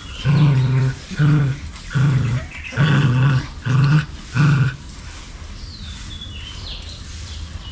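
Dog growling in about six short low-pitched bursts in quick succession, stopping a little past halfway.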